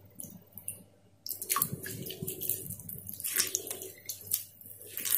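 Hands working a lump of fresh mozzarella curd in a steel bowl of water: irregular splashing and sloshing, starting about a second in.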